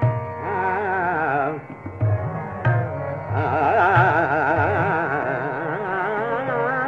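Hindustani classical vocal in raga Sampoorna Bageshree: a male voice sings fast, undulating taan runs over a steady drone, with tabla strokes beneath. The singing breaks off briefly about a second and a half in, then resumes.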